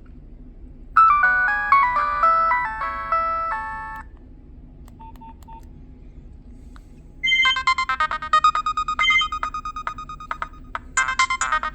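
Nokia 6010 mobile phone playing its preloaded ringtones. A short electronic melody starts about a second in and stops after about three seconds. After a pause, a second, faster ringtone with quick repeated notes starts about seven seconds in.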